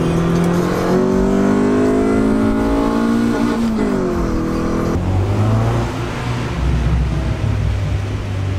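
Honda Civic engine heard from inside the cabin, accelerating, its note climbing steadily. It drops with a gear change about three and a half seconds in and climbs again. After a cut about five seconds in, a lower, steadier engine note follows.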